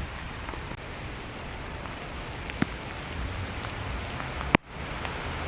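Steady rain, with single drops ticking sharply close by. About four and a half seconds in, one louder sharp click is followed by a brief drop in level.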